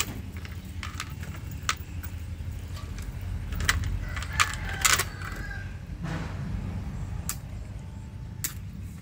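Scattered clicks and clinks as fish are worked free of a cast net on a boat's floor, with a cluster of sharper clinks about four to five seconds in, over a steady low rumble.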